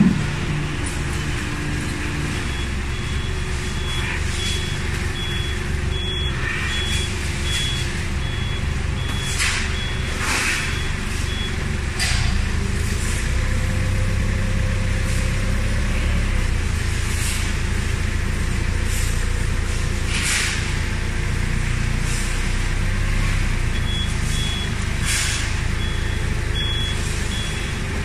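Forklift engine running steadily with its reversing alarm giving a regular series of beeps, which pause midway and start again near the end. The engine gets louder about twelve seconds in, with occasional short metallic knocks.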